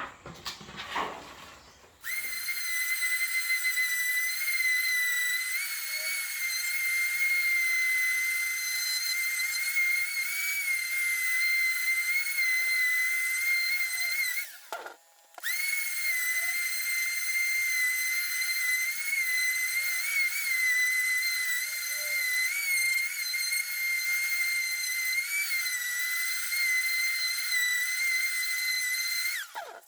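Random orbital sander running on a sanding disc, giving a steady high-pitched whine that wavers slightly. It cuts out briefly about halfway through.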